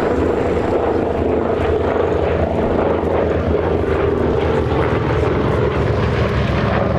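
SAAB B17A's Pratt & Whitney Twin Wasp radial engine and propeller running steadily, a continuous loud drone.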